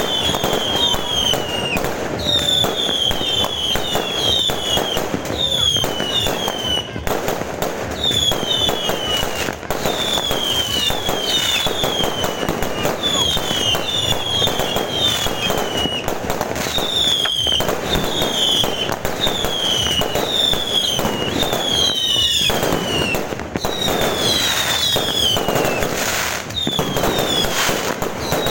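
Fireworks going off without pause: dense crackling bangs mixed with many high whistles that fall in pitch, one after another.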